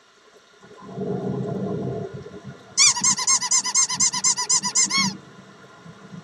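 A short low rumbling noise, then a rapid run of high-pitched squeaks, about ten a second for a little over two seconds.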